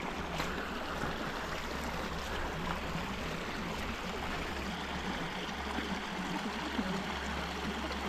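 Shallow moorland stream, the outflow of a tarn, running over stones: a steady rush of water.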